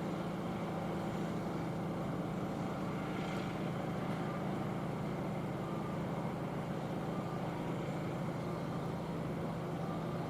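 Steady low mechanical hum of a train, even in level throughout.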